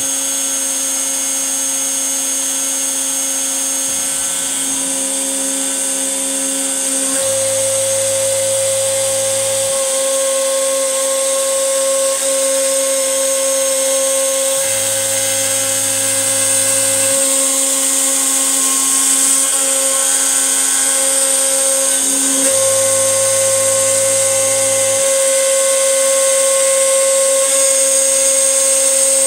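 X-Carve CNC router spindle running at a steady high whine while its end mill cuts into MDF. A lower hum comes and goes every two to three seconds as the bit changes direction tracing a rectangle.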